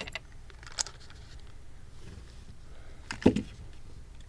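Pens and a pen pouch being handled: a sharp click at the start, a lighter click about a second in, and a louder knock about three seconds in, with quiet room tone between.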